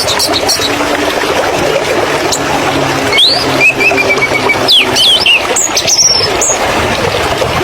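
Small birds giving short high chirps and quick whistled calls, one held briefly, over a loud steady rushing noise with a faint low hum.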